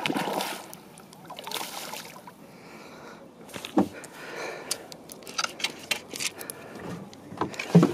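Water splash of a northern pike striking a surface lure, with a second splash about a second and a half later. Scattered knocks and clicks follow, the loudest about four seconds in.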